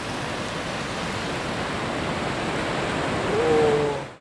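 Steady rushing surf noise on a beach, with a short voiced call about three and a half seconds in; the sound then cuts off suddenly.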